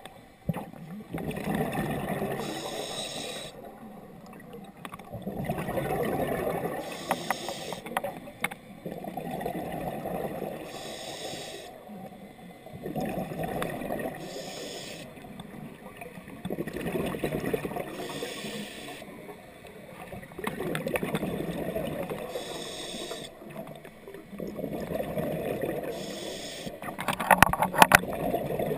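A scuba diver breathing through a regulator, heard underwater: a short hiss on each inhale and a rumble of exhaled bubbles, repeating about every four seconds. A few sharp clicks near the end.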